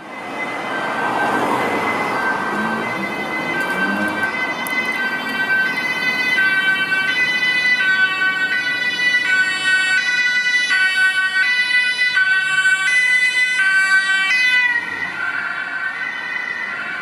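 German police two-tone siren (Martinshorn) on a Volkswagen police car, switching back and forth between a lower and a higher note about every 0.7 s. It grows louder as the car approaches, and its pitch drops about 15 seconds in as the car passes. Street traffic is heard beneath it.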